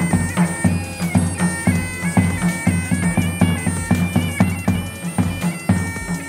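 Bagpipe playing a tune over its steady drones, with a bass drum beating about four times a second.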